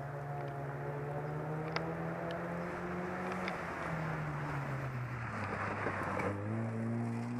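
A Mk2 Volkswagen Golf rally car at speed on a gravel stage. Its engine holds steady revs, then drops in pitch twice as the car slows for the corner. A rush of tyre and gravel noise comes as it passes close, and near the end the revs climb again as it accelerates away.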